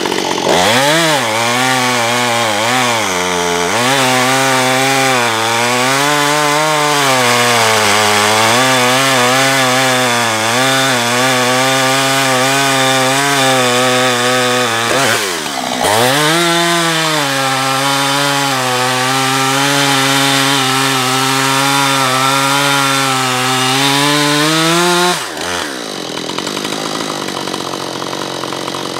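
Husqvarna 450 two-stroke gas chainsaw held at full throttle while cutting through a log, its engine pitch steady and high under load. It drops off and climbs back a few times (near the start and about halfway), and near the end falls back to a quieter, lower idle.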